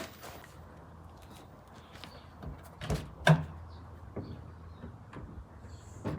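A few sharp knocks and clunks, the loudest a close pair about three seconds in, as of metal parts or tools being picked up and set down. Behind them runs a faint steady low hum.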